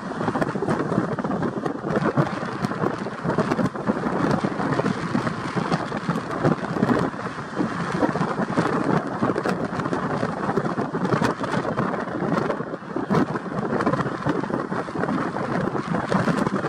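Strong wind buffeting the microphone: a rough, fluttering rumble that never lets up.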